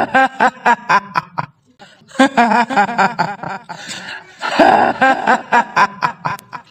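Kuntilanak ghost laugh: a woman's high-pitched, rapid "hihihi" cackle in three long runs of quick pulses with short breaks between them.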